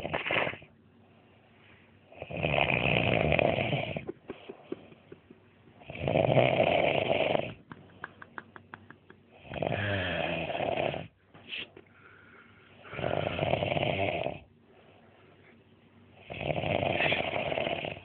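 A sleeping man snoring in a steady rhythm: five loud snores, one about every three and a half seconds, each lasting about a second and a half.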